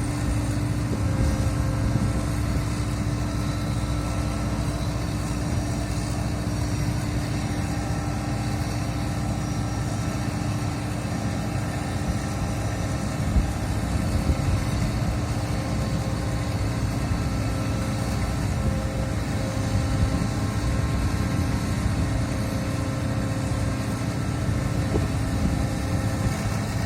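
Combine harvester running steadily: a continuous low engine and machinery drone with a few faint steady tones above it.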